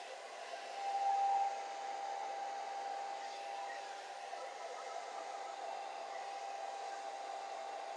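Remington D3010 hair dryer running steadily, an even rush of air with a steady motor whine, a little louder about a second in.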